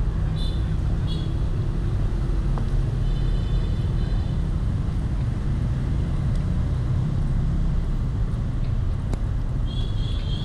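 Steady low rumble of city traffic, with a few short high-pitched vehicle horn toots: a brief one at the start, one about three seconds in and another near the end.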